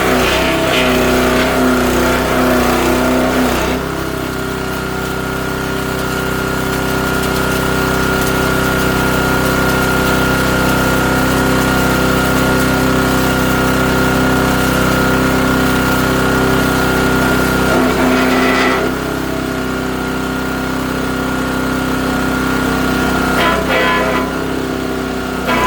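Great Circle USA 3-inch mini wood chipper shredder, its 7-horsepower AlphaWorks engine running steadily under a loud, even drone. Three rougher, crackling stretches sit on top of it: at the start, about two-thirds of the way through, and again near the end, as branches are forced in and chipped.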